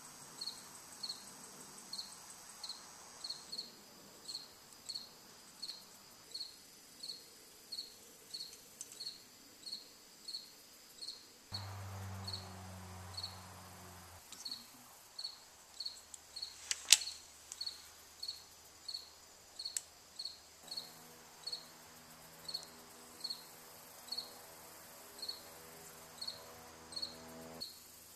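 A cricket chirping steadily, about three chirps every two seconds. A low electrical hum, like a soldering gun's transformer, sounds for a couple of seconds about 12 seconds in. A sharp click near 17 seconds is the loudest moment, and another low hum runs through most of the last seven seconds.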